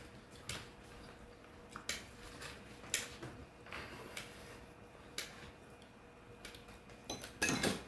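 Sparse, irregular light clicks and taps, about seven, with a short cluster near the end, over a faint steady hum.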